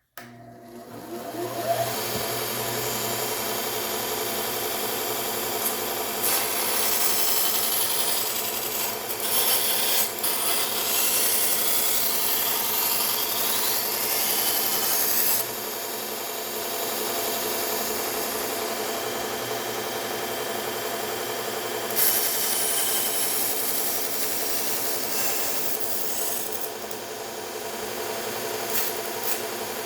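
Bucktool slow-speed belt sander/grinder switched on, spinning up within a couple of seconds and then running steadily with a hum, while a knife edge is ground against the moving belt. The rasping of the blade on the belt grows louder in stretches, one from about six to fifteen seconds in and another from about twenty-two seconds on.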